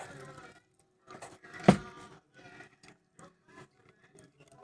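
Pet hedgehogs eating cockroaches from a bowl and shuffling through wood-shaving bedding: irregular short crunches and rustles, with one loud thump about a second and a half in.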